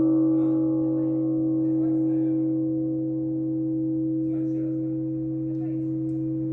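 Russian Orthodox church bells ringing out after a stroke, with no new strokes: the deep hum of the large bells is held and slowly fades, and the higher overtones die away first.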